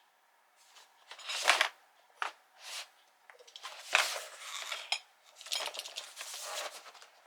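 Cardboard game boxes and small items being handled: a series of short rustles and light clinks, with a busier stretch of rustling after the halfway point.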